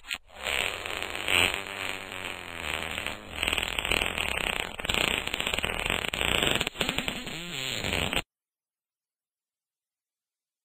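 A long fart, about eight seconds, its pitch wavering up and down and sputtering near the end before it cuts off suddenly.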